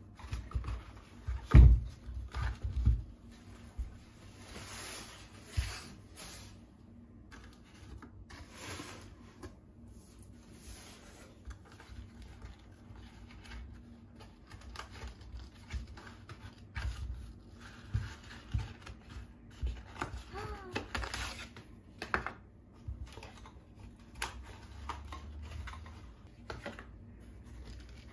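Handling new Dr. Martens platform sandals on a wooden floor: a couple of heavy thumps early on as the chunky soles are set down, then scattered taps and clicks from the straps and buckles, with rustling of packing paper.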